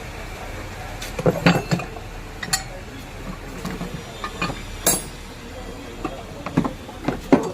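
Metal tools and parts clinking and knocking irregularly, a dozen or so sharp strikes, some leaving a short metallic ring, during hand work on an electric motor.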